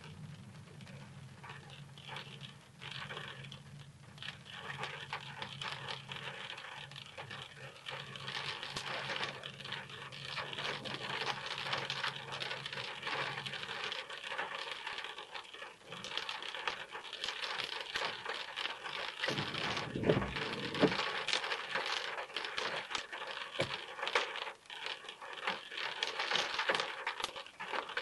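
Rain falling on a car's roof and windscreen, heard from inside the car as a dense crackle of drops that gets heavier after about eight seconds. A low hum runs under it for the first half, and a couple of louder knocks come about twenty seconds in.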